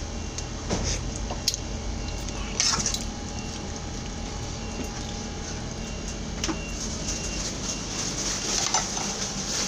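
Steady machine hum in a small room, with a few light clinks and knocks scattered through it as a metal spoon and an aluminium pot lid are handled over a cooking pot.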